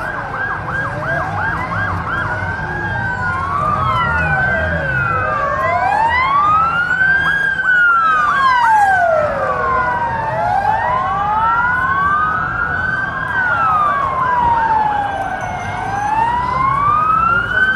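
Several emergency vehicle sirens sounding at once, their slow rising and falling wails overlapping, with a fast yelping siren in the first couple of seconds.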